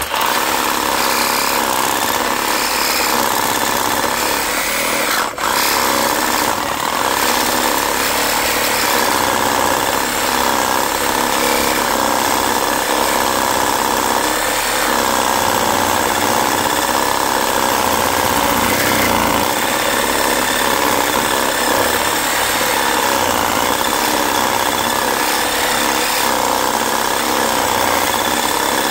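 Reciprocating saw running steadily as it cuts into the transformer's copper and fiberglass, with a brief break about five seconds in.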